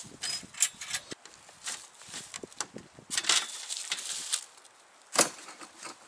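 Plastic folding table being unfolded and set up on dry leaves: scattered clicks and rattles from its metal legs and frame, with leaves rustling underfoot. A sharp knock about five seconds in.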